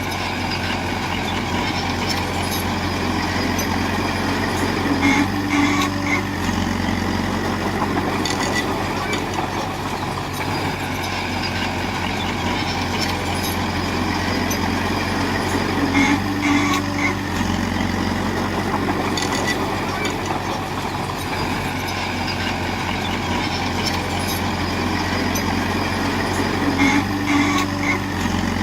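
Komatsu bulldozer's diesel engine running steadily. Its note shifts in a cycle about every eleven seconds, each time with a short high sound just before the change.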